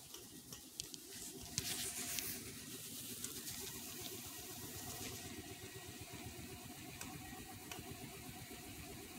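Nimto vibration plate running under a person's weight: a steady, fast low buzzing rattle. Rustling and a few knocks from a handheld phone brushing against clothing come about two seconds in.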